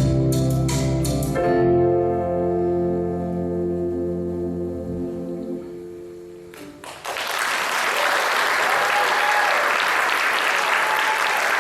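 A live band ends a song: a few last drum-and-chord hits, then a held chord that rings out and fades over several seconds. About seven seconds in, the audience breaks into applause.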